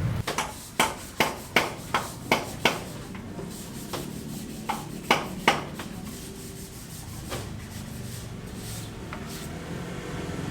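A quick run of sharp knocks, about seven strikes two or three a second, then two more after a short pause, with a few fainter ones later.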